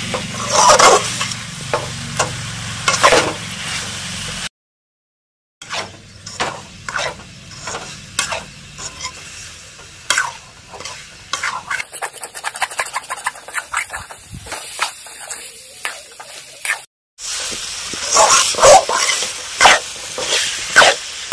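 A metal ladle stirs and scrapes diced pumpkin around a steel kadai in quick, repeated strokes while the spiced pumpkin sizzles. The sound stops dead twice, once about four seconds in and once briefly near the end.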